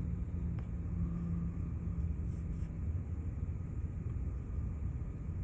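Steady low outdoor rumble, with a low hum that fades out about three seconds in.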